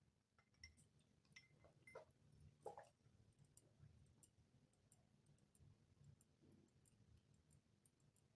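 Near silence: faint room tone with a few soft small clicks, most of them in the first three seconds.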